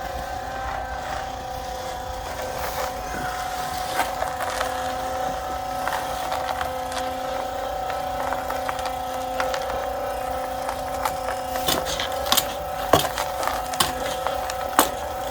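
Portable concrete mixer running with a steady hum. Several sharp knocks come in the last few seconds.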